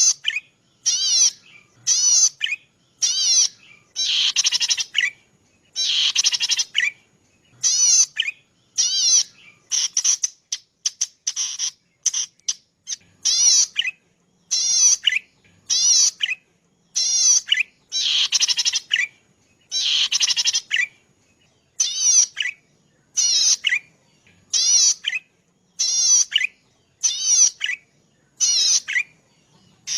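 Cici padi, a small rice-field warbler, calling in short, high, buzzy bursts of rapid notes, about one burst a second, a few of them longer.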